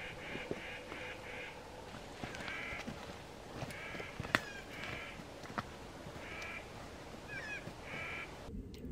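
A bird calling in short, harsh, nasal notes, in quick runs of three or four that repeat every second or two, with a couple of sharp clicks in between.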